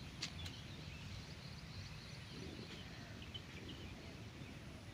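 Faint outdoor ambience: scattered distant bird chirps over a low rumble, with a couple of small clicks about a quarter second in.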